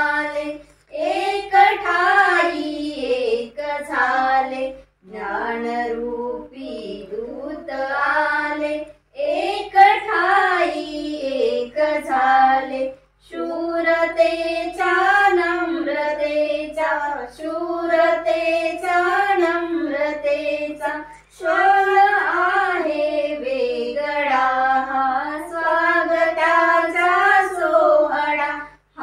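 Two women and a girl singing a Marathi song together without accompaniment, in phrases a few seconds long with short breaks for breath between them.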